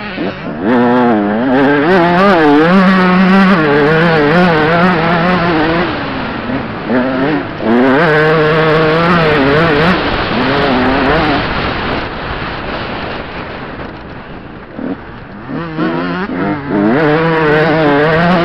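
Dirt bike engine ridden hard around a dirt track, its pitch climbing and dropping over and over with the throttle and gear changes. It eases off for a few seconds after the middle, then opens up again near the end.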